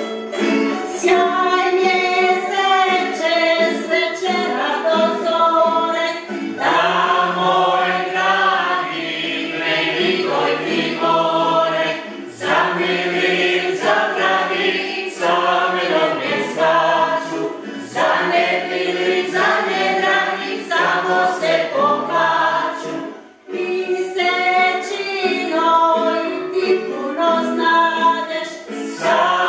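A group of voices singing a Croatian folk dance song a cappella, breaking off briefly about three-quarters of the way through before carrying on.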